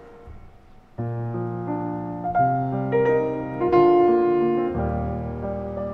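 Piano music: after a quiet moment, full chords come in about a second in and carry on with changing notes.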